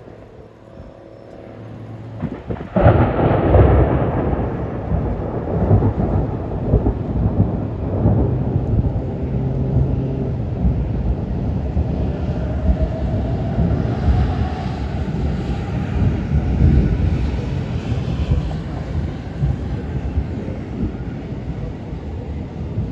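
Thunder from a nearby lightning strike: a rumble builds, breaks into a loud crack about three seconds in, then rolls on at a steady level for the rest of the time.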